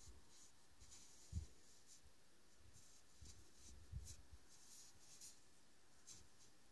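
Faint, irregular scratching and crunching of snow, with two soft thumps about one and a half and four seconds in.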